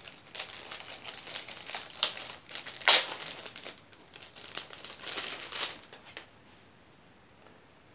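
Clear plastic packaging bags crinkling and rustling as they are handled to take out phone-line cords, with one loud crackle about three seconds in. It dies down over the last two seconds.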